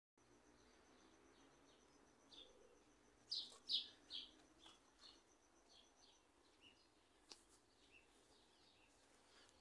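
Small birds chirping: a scattered run of short, high chirps, loudest about three to four seconds in, against otherwise quiet open air. A single sharp tick sounds about seven seconds in.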